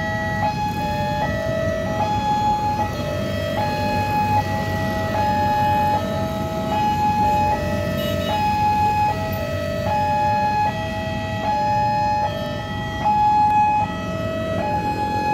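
Railway level-crossing warning alarm sounding a steady two-tone high-low pattern, each note held about three-quarters of a second, signalling an approaching train as the barriers come down. Road traffic idles underneath.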